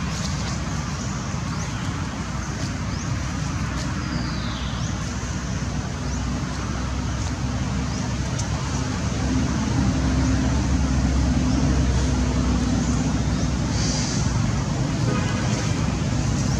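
Steady rushing background noise with a low hum, which grows a little louder about ten seconds in.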